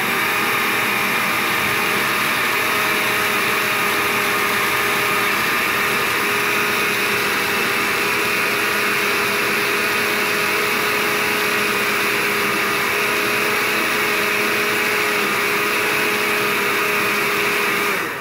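Countertop blender running steadily, puréeing peaches with cream cheese and water: an even motor whine over the churning of the liquid. It stops near the end.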